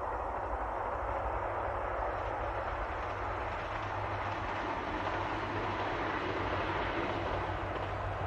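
Diesel train running along the Nemuro Line: a steady rumble of engine and wheels on rail that builds slightly.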